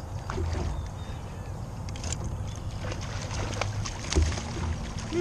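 Water sloshing and lapping around a kayak, over a steady low rumble, with scattered small clicks and splashes.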